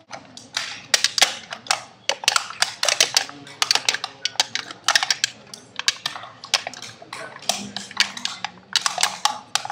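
Thin aluminium drink cans being scratched and pressed by hand and with pen points, giving a quick, irregular run of sharp clicks and crackles.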